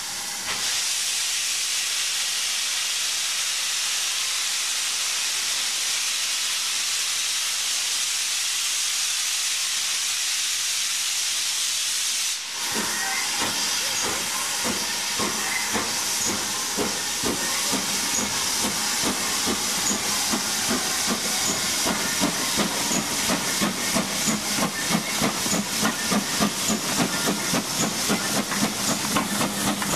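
Steam locomotive: a steady hiss of escaping steam, then, after a sudden break about twelve seconds in, the exhaust beats of the engine working, coming quicker and more regular toward the end.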